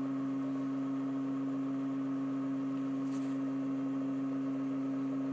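Vision Blue mini converter running on test, its aluminium magnet rotor driven by pulsed coils: a steady, unchanging hum with a clear pitch.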